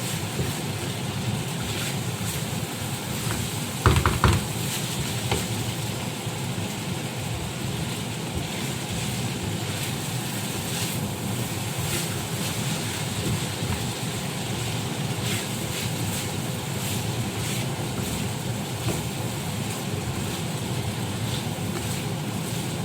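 Vegetable filling frying in a pan, a steady sizzle with scattered light clicks of a spatula stirring it, and a louder clatter of the spatula against the pan about four seconds in.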